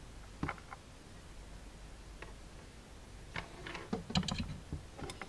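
Light clicks and taps of a soldering iron and small tools being picked up and handled on a wooden workbench. They are sparse at first, with a busier run of clicks and knocks in the second half.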